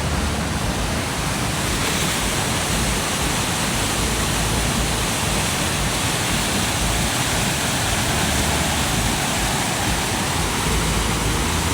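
Water rushing out from the foot of a reservoir dam into the Cauldron Snout cascade: a steady, loud rush.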